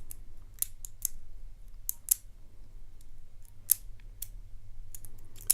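Lock pick working the pin stack of a six-pin Yale euro cylinder lock: scattered sharp metallic clicks and ticks at an irregular pace, the pins clicking as they are lifted and set. A louder click comes a little past halfway and another at the very end.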